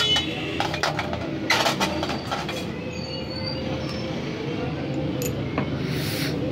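Small metallic clicks and clinks of a screwdriver and the ceramic end holder against the quartz heater's sheet-steel end bracket as the quartz element tube is worked loose, mostly in the first two seconds, with a brief rustle near the end, over a steady low background hum.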